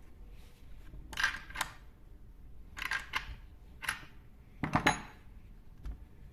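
Plastic and metal parts of a chainsaw being handled and fitted during reassembly: a series of short clicks and clatters, about six in all, the loudest about a second in and near the five-second mark.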